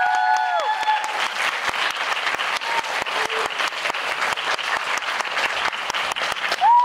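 Audience applauding with dense, rapid clapping, and a few high calls from the crowd just at the start and again at the very end.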